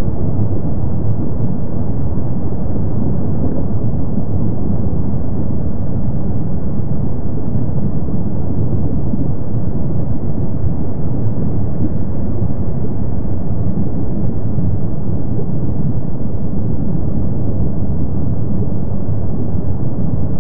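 Lava fountains spattering and churning in Kīlauea's lava lake, making a steady, low, noisy rumble that never breaks or changes.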